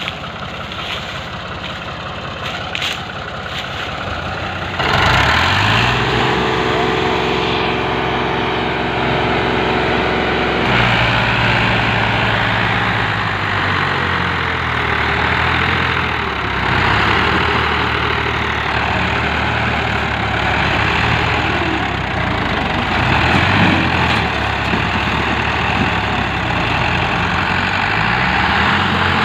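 Diesel engines of two Fiat tractors, a 640 and a 480, chained together in a tug-of-war and running hard under load. The engines get louder about five seconds in, and the pitch rises and falls a few times as they are revved.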